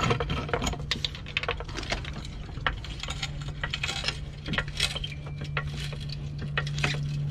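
Hydraulic floor jack being worked under a car: many metallic clicks and clanks from its handle and pump, over a steady low hum.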